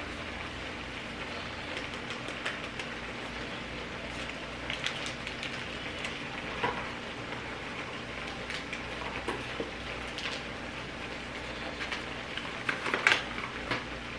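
Mushrooms and chopped vegetables frying in oil in a pan: a steady sizzle with scattered small pops and crackles. A short cluster of clicks or knocks near the end.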